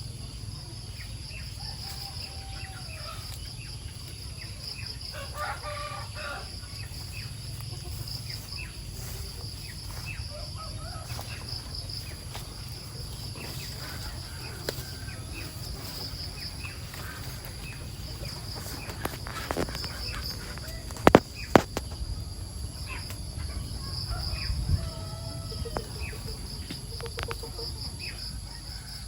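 Chickens clucking and calling over a steady, pulsing high insect buzz. Two sharp knocks come about half a second apart roughly three quarters of the way through.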